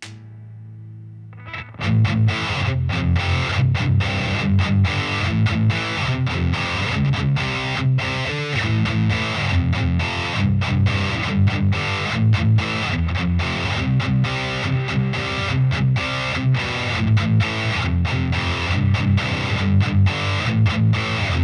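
Heavily distorted electric guitar, a Solar A1.7D LTD through a Peavey Vypyr 60 W combo amp. A quieter note rings for about a second and a half, then a loud, fast, choppy low riff of short chords with quick stops runs on, with a brief slide about eight seconds in.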